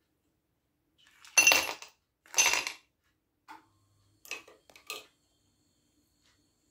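Two ringing clinks of kitchenware about a second apart, followed by a few lighter clicks and taps.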